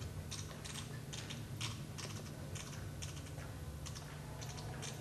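Irregular light clicks, about three a second, over a low steady hum.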